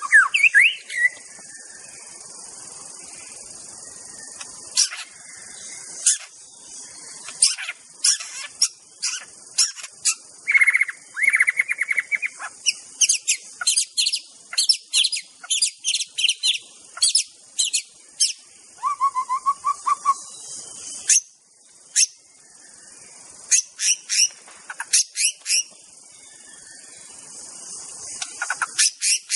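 White-rumped shama singing: a long run of sharp, quick chirps mixed with short whistled notes, with a fast rattling trill about ten seconds in and a brief low whistled phrase about two-thirds of the way through, over a steady high hiss.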